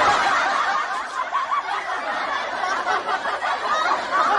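Canned laugh track: many people laughing together in one unbroken stretch.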